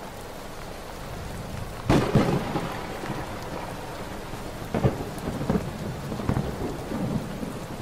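Thunderstorm: steady rain with a loud crack of thunder about two seconds in and several smaller thunder cracks later.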